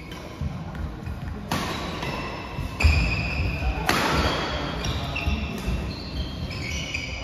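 Badminton doubles rally: three sharp racket strikes on the shuttlecock in the first four seconds, the second the loudest, with shoes squeaking and thudding on the court mat.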